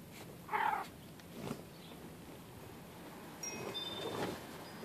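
Cats pawing and nosing at a green plastic circular track toy, with a few short scuffs and knocks. About three and a half seconds in there is a brief high metallic tinkle.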